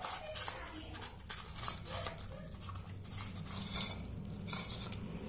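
German Shepherd puppy feeding from a steel bowl, its muzzle and teeth knocking the bowl in irregular metallic clinks and scrapes, several a second.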